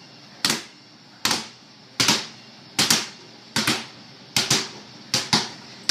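Basketball dribbled on a concrete floor: seven bounces about three-quarters of a second apart, each a sharp slap with a short ringing echo. From the fourth bounce on, each comes as a quick double hit.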